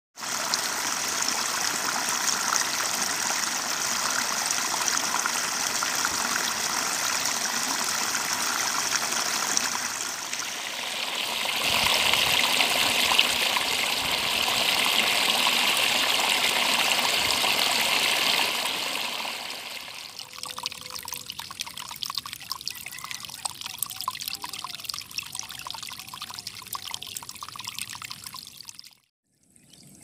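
Shallow water pouring and splashing over a muddy ledge into a small pool: a steady rush that grows louder from about 11 to 19 seconds, then falls to a quieter, crackly trickle. The sound cuts out briefly near the end.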